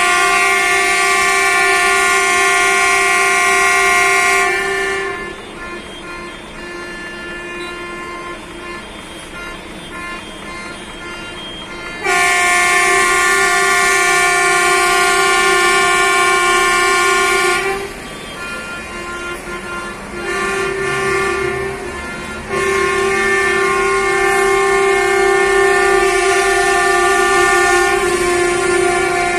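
Coach air horns held in long, loud blasts in protest. One horn chord lasts about four seconds, another runs about six seconds from roughly twelve seconds in, and a third starts about two-thirds of the way through. Fainter honking continues between them.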